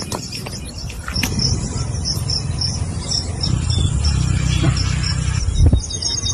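Cricket-like chirping: short high chirps repeating evenly about three times a second, over a low rumble that is the loudest sound.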